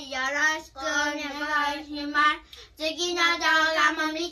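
A child singing a tune in long held notes, with short breaks between phrases.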